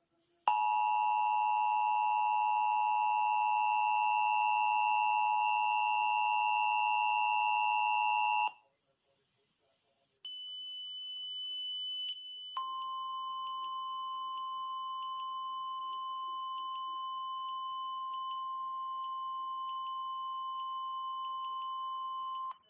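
Emergency Alert System attention signal: a harsh, steady two-tone chord held for about eight seconds, then cut off. After a short pause a high steady tone starts, and about two seconds later the single steady 1050 Hz weather-radio warning tone joins it and holds.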